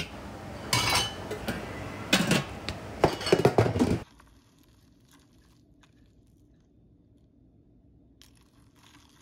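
A metal ladle clinking against a stainless-steel pot and ice clinking in a paper cup as sweet soup is served, with a series of sharp knocks and clinks. About four seconds in it cuts off suddenly to faint room tone with a couple of small clicks.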